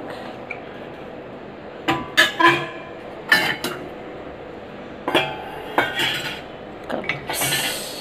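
Stainless steel bowls and dishes clinking and knocking against each other and the dishwasher's wire rack as they are lifted out by hand. Short sharp clinks come in small clusters about two seconds in, around three and a half, five and six seconds, with a longer rattle near the end.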